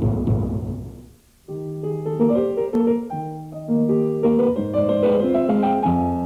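Background music: a drum roll dies away in the first second, then after a short pause a solo piano begins, playing a melody of separate notes over a bass line.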